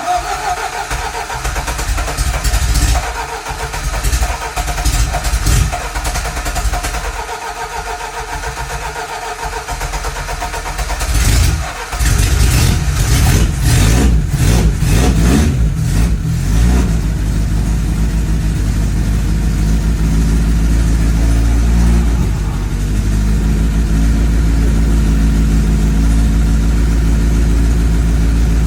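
Lada Niva four-cylinder petrol engine at its first start after a rebuild with a milled cylinder head. The starter cranks it for about eleven seconds, the engine catches and revs unevenly for a few seconds, then settles into a steady idle.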